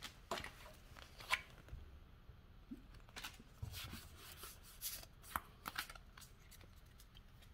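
Pokémon trading cards being handled and slid from an opened booster pack: faint, scattered light clicks and rustles of card stock.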